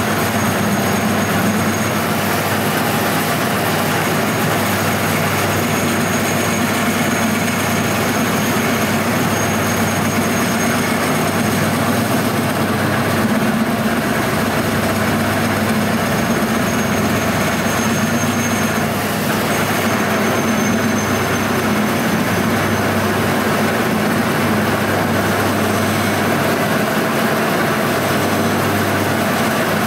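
1M61P metal lathe running steadily, its three-phase motor fed from single-phase 220 V through run capacitors, with a constant motor and gearbox hum while the spindle turns a metal tube under the cutting tool.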